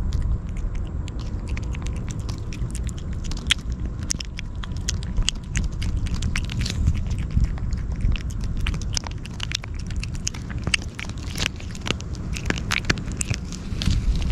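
A kitten licking and chewing Churu lickable treat paste from a tube held to its mouth: a quick, irregular run of wet smacking and clicking lapping sounds close to the microphone, over a low steady rumble.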